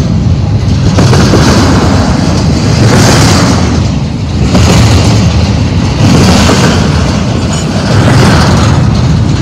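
Double-stack intermodal freight train's well cars rolling past close by: a loud, steady rumble of steel wheels on rail that swells and eases every few seconds.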